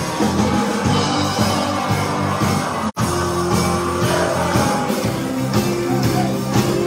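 Live rock and roll band playing, with guitars, drums and a singing voice over a steady beat. The sound drops out completely for a split second about three seconds in.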